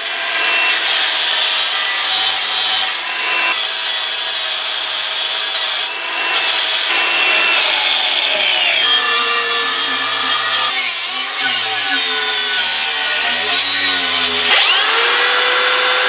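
Angle grinder grinding steel, its whine sagging in pitch as it bites and climbing back when it frees up, over a continuous hiss.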